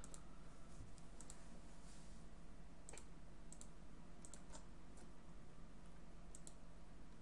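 Faint computer mouse clicks, several in quick pairs, over a low steady hum.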